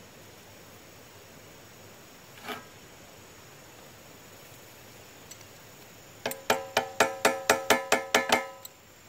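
A quick run of about a dozen sharp metallic clinks, roughly five a second, each ringing with a pitched tone, as a steel C-clamp is tightened onto the steel I-beam, metal knocking on metal. A single light tap comes earlier.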